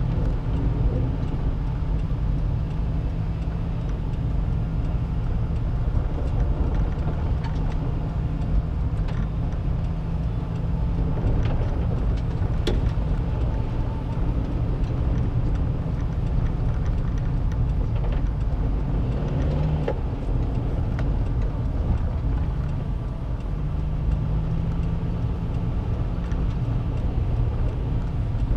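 Car driving slowly on a wet, snow-edged road, heard from inside the cabin: a steady engine and road rumble with a low hum, and a few light clicks.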